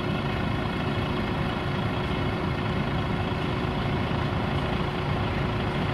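DAF XF tipper truck's diesel engine idling steadily while tipping grain, mixed with the steady running of the grain conveyor, a constant drone with a steady hum over it.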